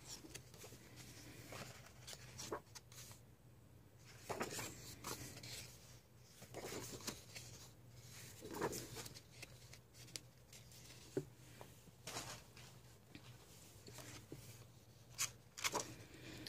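Thick paper pages of a large coloring book being turned by hand, a soft papery swish with each turn, several times over.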